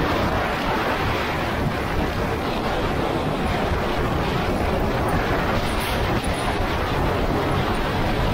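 Steady wind noise buffeting the microphone over go-kart running noise, with no clear engine pitch standing out.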